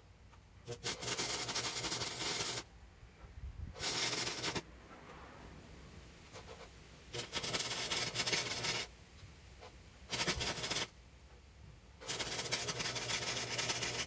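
Arc welder tack welding an engine-mount bracket onto a chopper bicycle frame: five bursts of noise, each starting and stopping sharply, the longest about two seconds.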